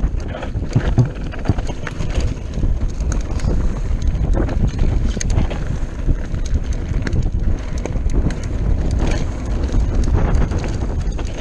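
Mountain bike descending a rocky dirt singletrack: wind buffeting the microphone over a steady rumble of tyres on loose stones, with frequent rattles and knocks from the bike as it hits rocks.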